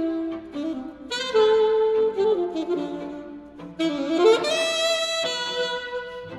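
Alto saxophone playing sustained melodic phrases over a string quartet, with an upward scoop into a loud held note about four seconds in.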